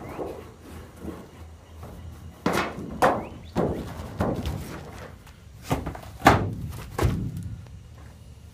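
A sheet-metal pool-wall repair panel knocking against the pool wall about seven times, in uneven hollow thunks with a short ring, as it is pushed and set up against the wall. The knocks start a couple of seconds in, and the loudest comes a little past the middle.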